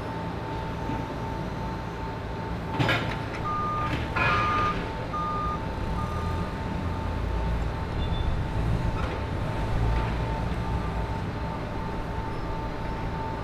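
Forklift engines running, with a reverse alarm beeping about once every 0.8 s for a few seconds partway through. There are metallic clanks about three and four seconds in, and a steady high tone underneath.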